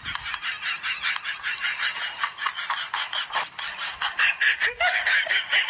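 Fast, rhythmic cackling laughter: short pulses, several a second, in an unbroken run.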